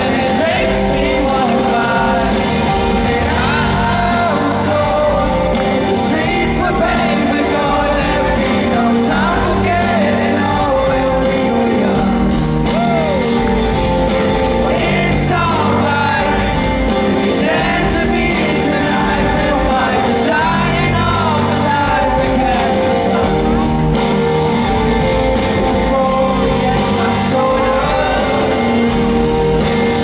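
Live rock song: a male voice singing over strummed acoustic guitar, with a low bass line underneath, echoing in a large arena.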